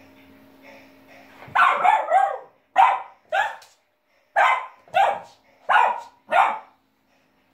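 Cavalier King Charles spaniel puppy barking in play at a balloon: about nine short barks, starting about a second and a half in, the first three run together and the rest in pairs with short gaps.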